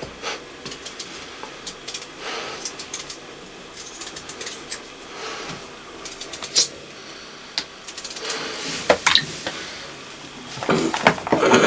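Potatoes being peeled by hand with a small vegetable peeler: irregular scraping and clicking, with light knocks of peeler and potatoes against a plastic tub.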